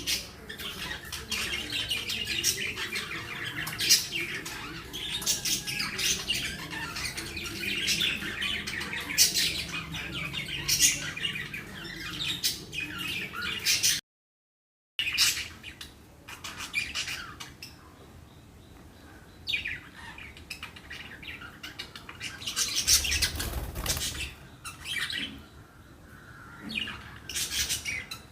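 Budgies chirping and chattering in rapid, squawky bursts. The sound cuts out for about a second halfway through, and after that the chirps come more sparsely.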